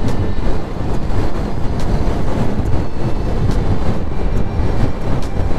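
Steady rush of wind buffeting the microphone, with road and engine noise, from a Yamaha Aerox 155 scooter cruising at highway speed.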